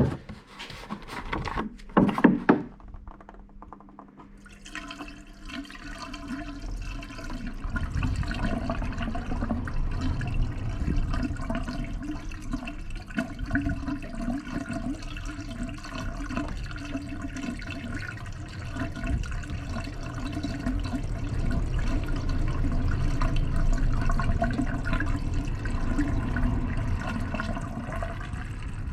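Water pouring steadily from a container into a car's windscreen washer fluid reservoir, gurgling as the reservoir fills. A few knocks of handling come in the first couple of seconds, before the pour starts about four seconds in.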